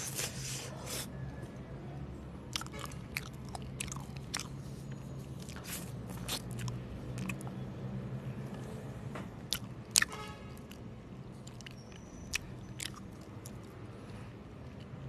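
Close-miked biting and chewing of homemade mochi ice cream: irregular wet mouth clicks, with one sharper click about ten seconds in, over a low steady hum.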